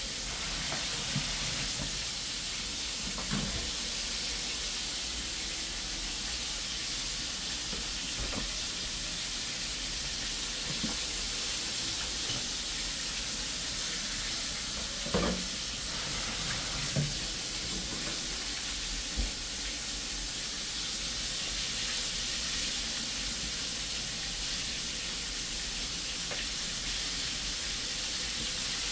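Steady sizzle of food frying in oil in a pot, with a few soft knocks now and then.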